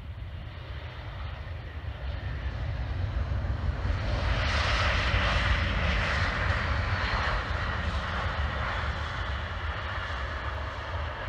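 Jet engines of an Airbus A320-family airliner rolling out on the runway just after landing: a steady low rumble, with engine noise swelling over the first few seconds, loudest about halfway through, then easing a little.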